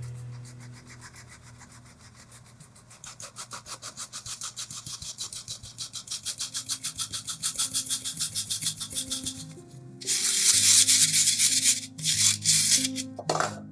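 Fine-mesh sieve being shaken over a bowl, flour rustling and rasping through the wire mesh in a quick, even rhythm of several strokes a second, then louder, longer rasps in the last few seconds. Soft background music plays underneath.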